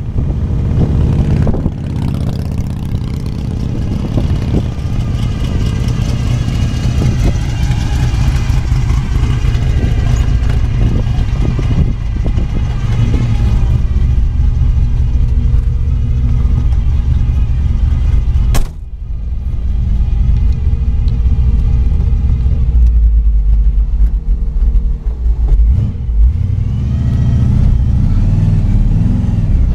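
The 1960 Chevrolet Biscayne's engine runs with a strong low exhaust rumble throughout. About two-thirds of the way through there is one sharp thump. Near the end, the engine revs up as the car drives off.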